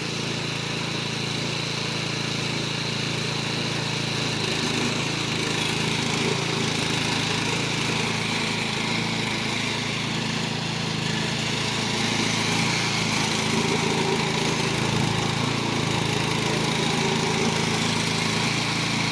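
Remote-controlled lawn mower's engine running steadily.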